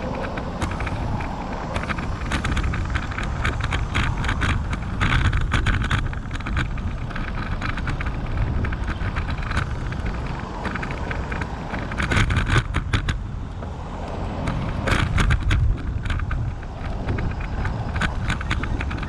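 Wind buffeting the microphone while cycling along a road: a steady low rumble with clusters of sharp rattling clicks, strongest about a quarter and about two thirds of the way in.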